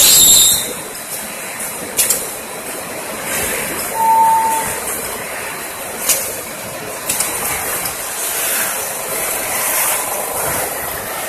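Fried wheat-flour chip production line running: steady machinery noise with a few sharp clicks and knocks, a loud hiss right at the start, and a short high squeal about four seconds in.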